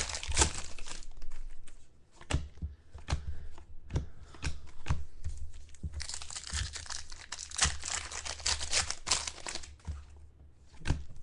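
Wrapper of a pack of football trading cards being torn open and crinkled, with scattered sharp crackles and a denser run of crinkling from about six to nine seconds in.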